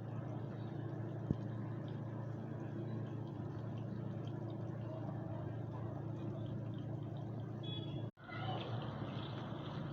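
A steady low hum with a hiss behind it, like a fan or motor running, broken by a brief dropout about eight seconds in.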